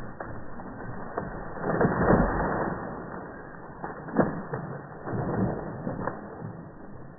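Dead tree's wood creaking and cracking, with a loud burst of splintering about two seconds in and a few sharp snaps after it.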